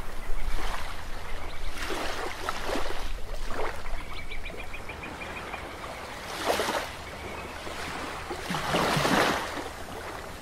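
Rushing, splashing water that swells and falls several times, like waves washing, over a steady low hum.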